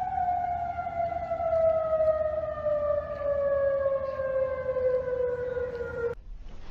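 Outdoor tsunami warning siren sounding, its single wailing tone falling slowly in pitch as it winds down. It cuts off abruptly about six seconds in.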